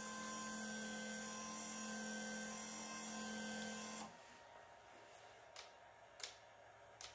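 Small electric hoist motor of a 1/12-scale RC crawler crane model, whining at a steady pitch as it lowers the boom, then stopping about four seconds in. A few faint clicks follow.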